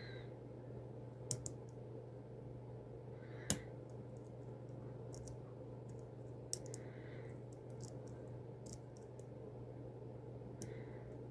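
Lock picking tools working inside an EVVA 4KS cylinder lock: a few scattered sharp clicks and faint scrapes over a steady low hum.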